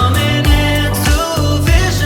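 Background music with a steady beat, bass, and a singing voice.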